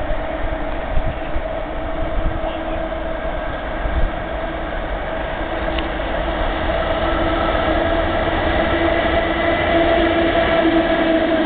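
ET22 electric freight locomotive hauling a timber train, approaching and accelerating. A steady humming tone over a low rumble grows louder as it draws near.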